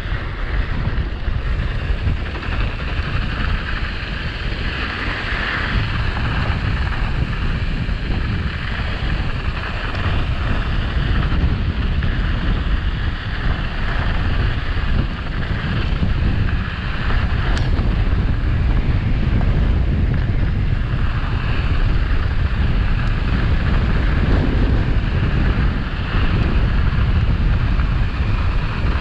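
Strong wind buffeting a helmet-mounted action camera's microphone at speed, a steady heavy rumble, over the hiss of mountain bike tyres rolling on loose, sandy dirt.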